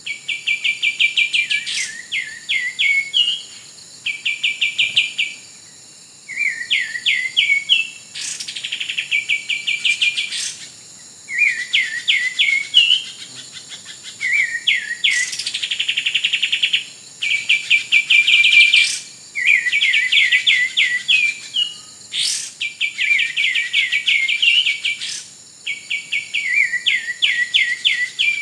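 Kapas tembak song: rapid, chattering trilled phrases repeated over and over with short gaps between them, and a few sharp descending whistles.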